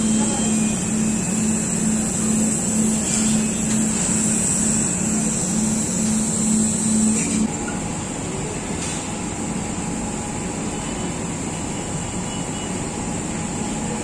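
Dental handpiece running with a steady high whine over a low pulsing hum; both cut off abruptly about seven seconds in. After that, a steady, quieter whir of room noise continues.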